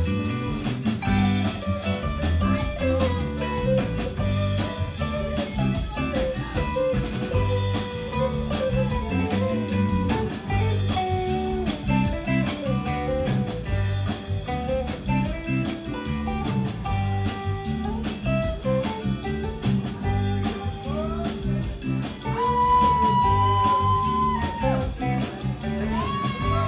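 Live rock band playing an instrumental passage: electric guitar leads over bass guitar, drum kit and keyboards with a steady beat. About three quarters of the way through, the lead guitar holds one long, bending note.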